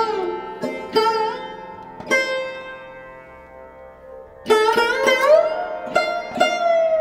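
Background music on a plucked string instrument, with notes that bend in pitch. In the middle a long note rings out and fades for a couple of seconds, then the plucking picks up again.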